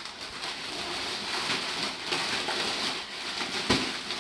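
Wrapping paper crinkling and tearing as a gift is unwrapped, with one sharp tap a little before the end.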